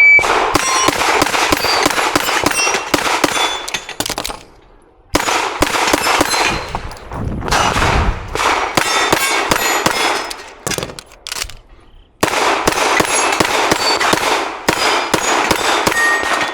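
Rapid pistol fire from a Dan Wesson DWX, shot after shot in quick strings, with steel knockdown plates clanging and ringing as they are hit. The shooting stops twice briefly, a little over 4 seconds in and about 12 seconds in.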